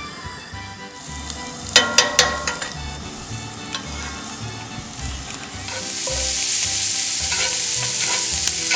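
Hot breakfast sausage sizzling in a cast-iron skillet, with a spatula chopping and scraping against the pan in sharp clicks. The sizzle comes up about a second in and gets louder about six seconds in as the meat is broken up.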